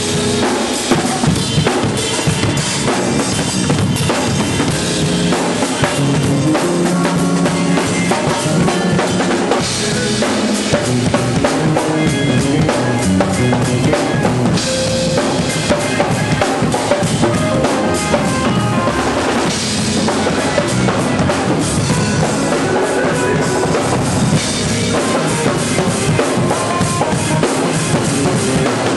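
A band jamming: a drum kit played busily, with snare, bass drum and cymbal hits, over sustained organ or keyboard chords and bass guitar.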